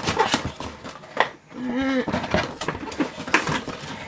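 Cardboard box and its packaging being pried and pulled open by hand: a run of scraping, rustling and tapping. Halfway through there is a short pitched sound lasting under half a second.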